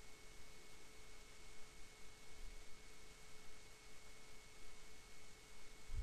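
Faint room tone: a steady hiss with a faint steady hum and a thin high whine, with no other sound.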